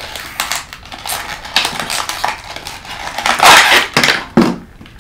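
Crinkling and rustling of blind-box packaging as it is opened: cardboard, crumpled tissue paper and a thin plastic insert handled in irregular scrunches, the loudest crumpling about three and a half seconds in.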